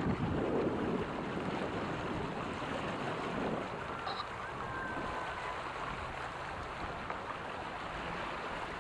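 Lake water rushing and splashing steadily along a sailing catamaran's hulls, mixed with wind, with a louder surge in the first second.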